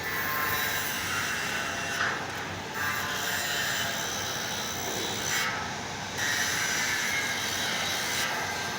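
Angle grinder grinding a welded metal part, a steady abrasive noise that rises and dips as the disc bears on and eases off the metal.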